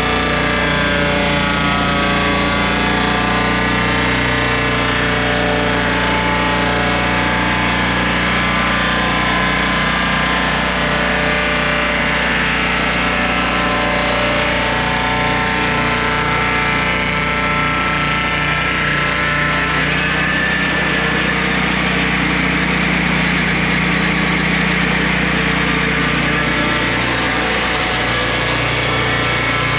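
Turbosawmill swingblade portable sawmill running, its engine droning steadily with the circular blade spinning. About two-thirds through, a rougher hiss joins in.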